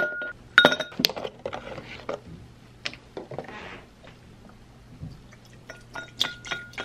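Ice cubes dropped into a drinking glass, clinking and ringing against it a couple of times in the first second. Chai concentrate then starts pouring from a carton over the ice near the end, with more clinks.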